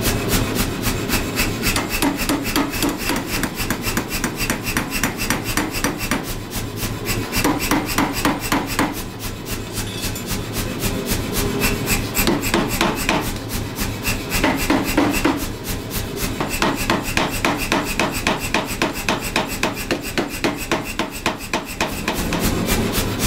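Power hammer with flat dies striking a red-hot leaf-spring steel bar in a fast, even run of blows, drawing the steel out, over the steady hum of the machine. The blows ease off briefly a few times as the bar is moved.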